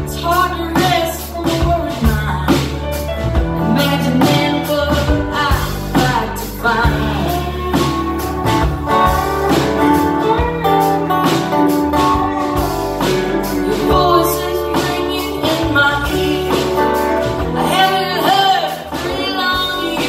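Live amplified band playing a song, with acoustic and electric guitars, keyboard and drums, and a lead vocal sung over it.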